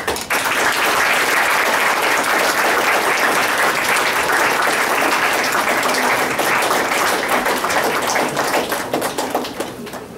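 Audience applauding steadily, starting abruptly and dying away near the end.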